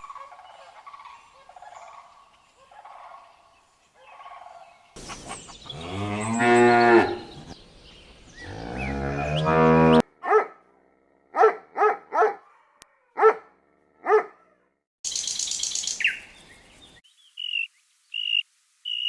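A cow mooing twice, in two long, low calls about five and eight seconds in. Before them, faint short calls repeat about once a second. After them come six short, sharp calls, a brief hissing noise and a few high chirps.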